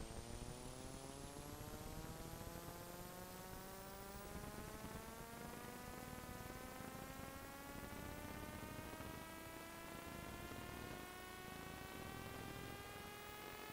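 Faint electrical buzz: a buzzy tone that climbs slowly and steadily in pitch, over a low mains hum. Home 8mm film of this era carried no sound, so this is noise added in the film-to-video transfer rather than anything in the scene.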